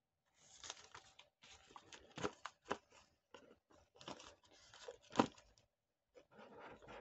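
Clear plastic shrink-wrap film being torn and peeled off a cardboard watch box, crinkling in irregular bursts. There is a sharper crackle about five seconds in and a short pause near the end.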